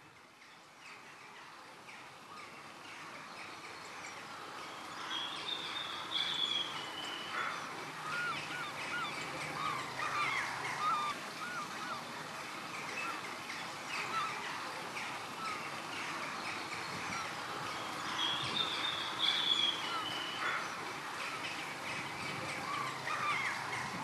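Many birds calling at once, short overlapping calls with a few repeated higher calls standing out. It fades in over the first few seconds.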